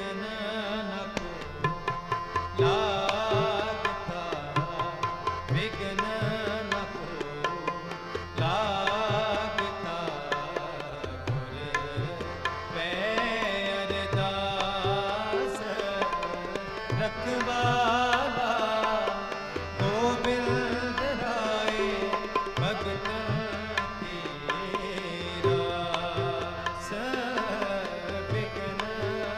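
Sikh kirtan: a tabla playing a rhythm under two harmoniums, with a voice singing long drawn-out melodic lines at times.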